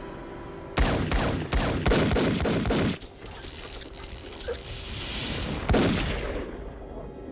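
Film sound effect of a rapid volley of gunshots lasting about two seconds, followed by one more loud shot about three seconds later.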